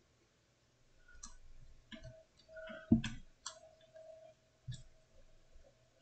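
Faint, scattered clicks of a computer mouse, about half a dozen irregularly spaced, the loudest about three seconds in with a dull knock.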